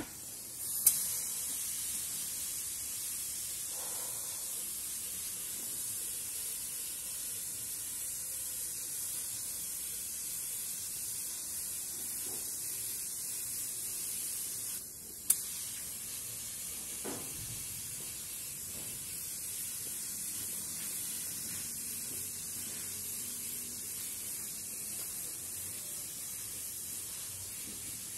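Gravity-feed paint spray gun spraying car paint: a steady high hiss of compressed air and atomised paint. It starts with a sharp burst about a second in, stops for a moment about halfway, and starts again with another sharp burst.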